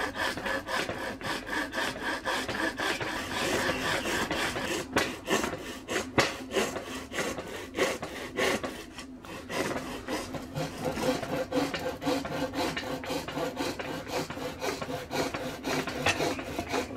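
Hand hacksaw cutting through a sheet of 6 mm hard plastic, with steady back-and-forth strokes.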